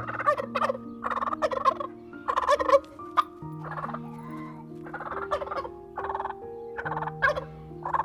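Turkeys gobbling, a dozen or so short calls in quick succession.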